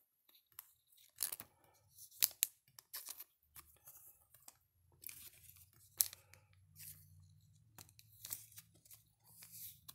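Trading card pack wrappers tearing open and cards being handled: a string of short, irregular rips and rustles with a few sharp snaps.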